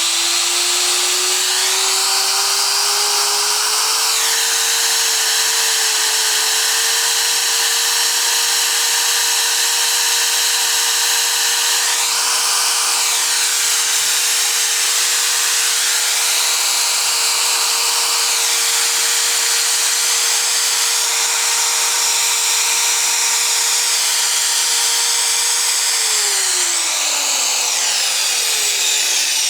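Dnepromash MShU 125-1200 angle grinder running unloaded on its first test start after a brush replacement: its whine climbs as it spins up over the first few seconds, holds steady, then drops away as it is switched off and winds down near the end.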